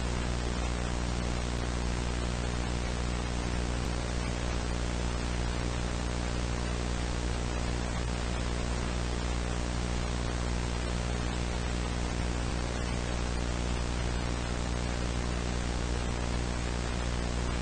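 Steady static hiss with a low electrical hum and its overtones underneath, constant and unchanging, like the noise of a dead analog broadcast channel.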